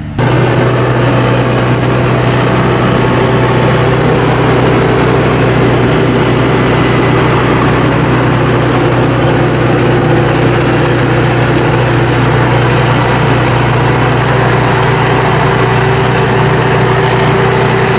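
Sakpattana SS-300 Black Bird combine harvester, with its five-cylinder 170 hp diesel engine, running steadily: a strong low engine hum, a steady mid tone and a thin high whine that wavers slightly in pitch. It starts abruptly at full level.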